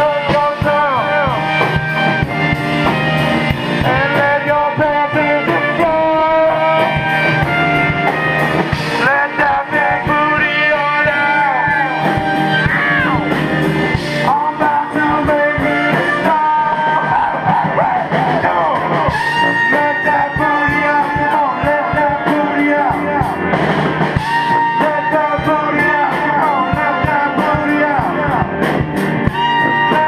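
A live band playing a song: a man singing over electric guitar with a brass section of sousaphone, trumpet and saxophone. The music is loud and dense, with no break.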